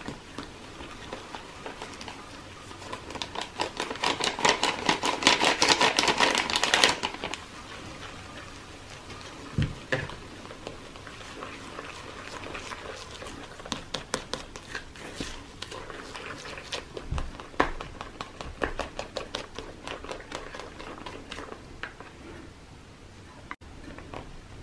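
A white plastic spoon stirring white henna powder into a soap and hydrogen peroxide mix in a plastic bowl. There is a busy spell of rapid clicking and scraping in the first few seconds, then lighter, scattered clicks and taps of the spoon against the bowl.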